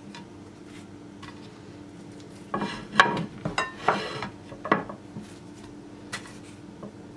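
Light clicks, taps and rustles as pieces of gözleme flatbread are picked off a wooden cutting board and laid on a white ceramic serving plate. Most of them come between about two and a half and five seconds in, over a faint steady hum.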